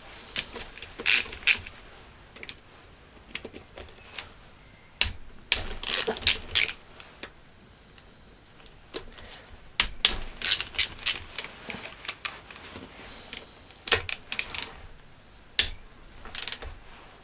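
Socket ratchet clicking in short runs and metal tools clinking while the oil pump's flange bolts are undone on a motorcycle engine.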